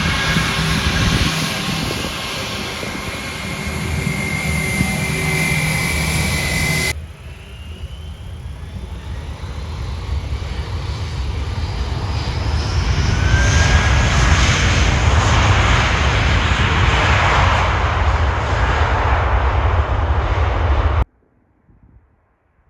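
Airliner engines running loud at close range with a whining tone. About seven seconds in the sound changes abruptly to another aircraft approaching, growing louder with a gliding whine, and then the sound cuts off suddenly near the end.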